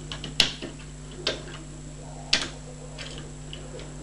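Small metallic clicks and ticks of wire picks working the levers of a 5-lever mortice lock held under tension, three sharper clicks about a second apart among fainter ticks, over a steady low hum.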